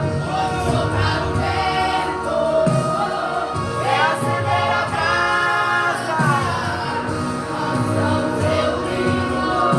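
Youth choir singing a Portuguese-language gospel song, several voices together over steady low instrumental notes.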